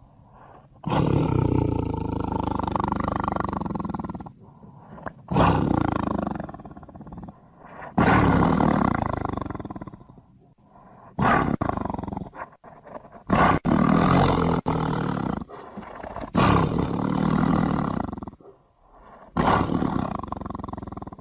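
Tiger roaring over and over: about seven loud, rough roars, each lasting one to three seconds and fading away, with short pauses between.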